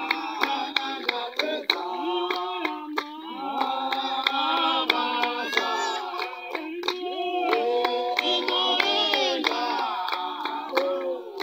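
A group of voices singing a Shona hymn together, with hand clapping keeping a steady beat.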